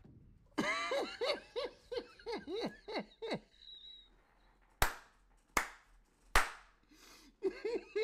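Someone laughing hard in quick, high-pitched bursts. Three sharp claps or slaps come a little under a second apart in the middle, and then the laughing starts up again.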